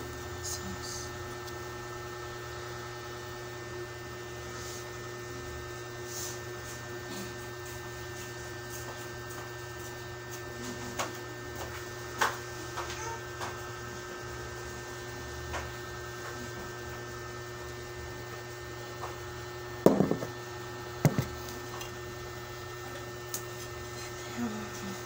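Steady electrical hum with several fixed pitches, broken by a few short knocks and clicks of a plate and food being handled, with two louder knocks about twenty seconds in.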